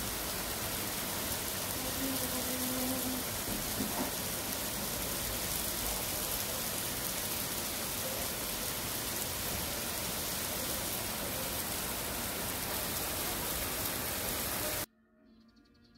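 Heavy rain pouring down onto a wet street and trees, a dense, steady hiss. It cuts off suddenly near the end.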